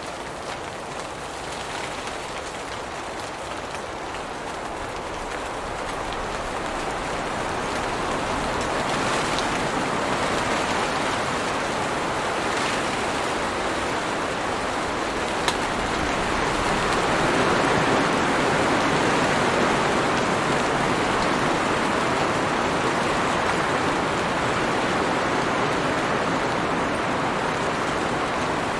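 Steady rain falling on tree leaves, a dense even patter that grows louder over the first ten seconds or so. A few sharper taps stand out here and there.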